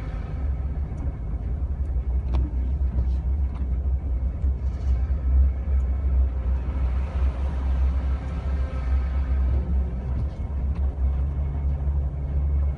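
Jeep Wrangler TJ heard from inside the cabin while driving on a snow-covered road: engine and tyre noise as a steady low rumble, with a few faint clicks over it.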